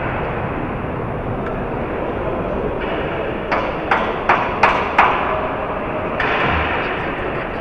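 Passenger train running, heard from inside the carriage as a steady rumble and hiss. A little after the middle come five sharp clicks about a third of a second apart, and the rush of noise grows brighter near the end.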